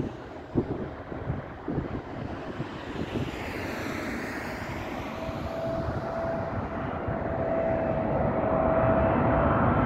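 Boeing 777-300ER on final approach, its twin GE90 turbofan engines growing steadily louder as it comes nearer. A steady whine sets in about halfway through over the rumble.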